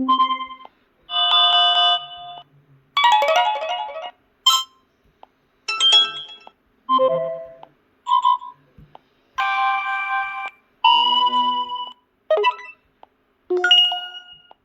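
Kyocera DuraForce Pro phone playing its preloaded notification tones one after another through its speaker: about eleven short musical alerts, each different and lasting under a second and a half, with brief pauses between them.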